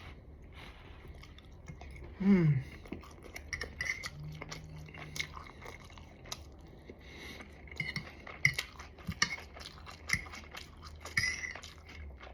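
A person eating: chewing and small wet mouth clicks with light clinks of cutlery, and a short falling "mm" of enjoyment about two seconds in, followed by a low hummed "mm".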